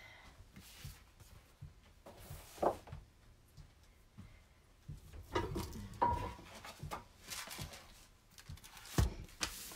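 Boards and tools being handled on a wooden workbench: scattered thunks, knocks and rubbing, with a sharp knock near the end.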